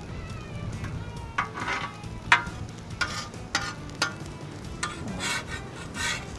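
Metal spatula scraping and tapping across the steel top of a Blackstone griddle while food fries and sizzles on it, in short irregular strokes, the sharpest about two seconds in.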